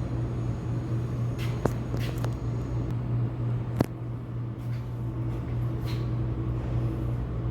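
Steady low hum of cold-storage refrigeration equipment running, with a few sharp clicks about two seconds in and one louder click near four seconds.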